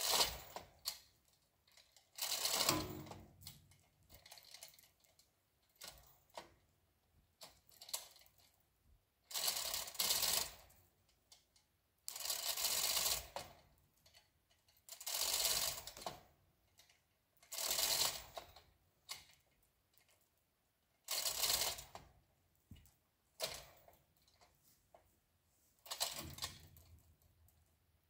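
A 2-ton chain fall (manual chain hoist) hand-pulled in strokes under load: the chain rattles and the ratchet pawl clicks. The clatter comes in bursts of about a second, every two to three seconds.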